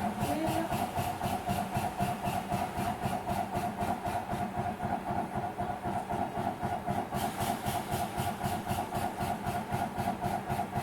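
Pegaso Cough airway clearance machine running in percussion mode: a steady mechanical hum cut into rapid, even pulses of air, several a second, delivered through the mouthpiece while the patient breathes normally.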